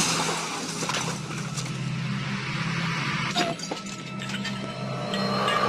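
Vehicle crash: glass shattering and breaking debris crackling and clinking, over a low steady drone.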